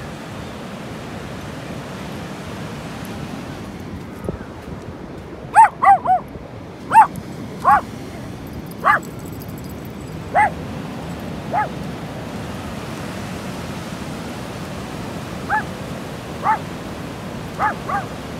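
A dog barking in short yaps, about a dozen, beginning about five seconds in and pausing for a few seconds in the middle, over the steady rush of surf and wind.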